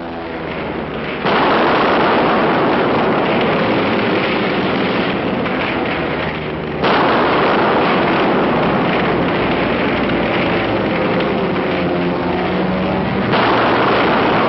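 Three heavy explosions from an air strike, each coming in abruptly (about a second in, about seven seconds in, and near the end) and carrying on as a long, loud rumble. A faint aircraft engine drone rises and falls beneath the later blasts.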